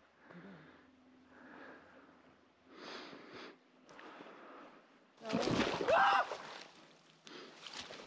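Soft noise swelling and fading every second or so. About five seconds in comes a short, loud human vocal sound with a wavering pitch, with no words in it.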